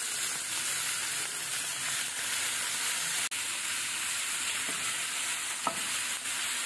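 Thin slices of beef sizzling steadily in a little hot oil in a nonstick frying pan while a wooden spatula turns them over. The sizzle breaks off for an instant about three seconds in.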